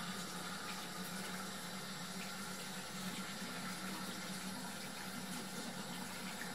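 A bathroom tap runs steadily into a small washbasin while hands are washed under the stream.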